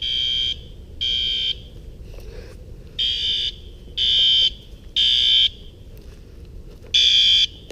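Fire alarm horn sounding shrill half-second beeps in the temporal-three evacuation pattern: three beeps about a second apart, a pause, then the next three.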